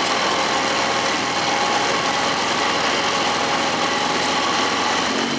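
Outboard motor of a boat running steadily at low speed.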